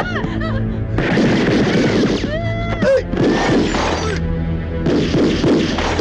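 Action-film soundtrack: music under three dense bursts of noise, each about a second long, like rapid gunfire or crashing, with a gliding pitched tone between the first two.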